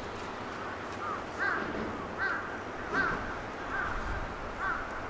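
A bird calling over and over: about six short, arched calls, roughly one a second, over steady background noise.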